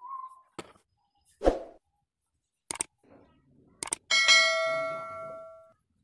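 A few short clicks and knocks, then about four seconds in a single bright metallic ding that rings on and fades away over about a second and a half.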